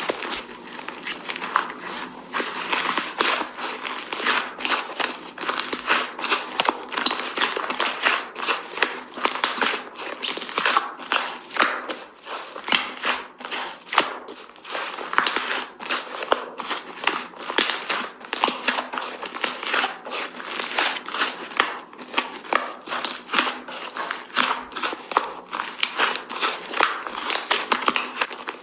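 Slime being squeezed, poked and stretched by hand, giving a dense, irregular run of sticky crackles, clicks and crinkly pops.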